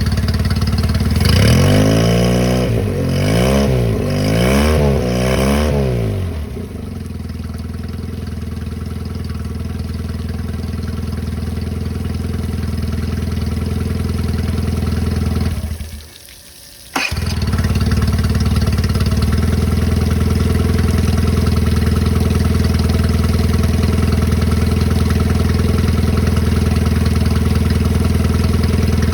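1998 Mercury 25 HP two-cylinder carbureted four-stroke outboard running. It is revved up and down about three times in the first six seconds, then settles to a steady idle. About two-thirds of the way through the sound cuts out for about a second and comes back with a click, and the steady running resumes.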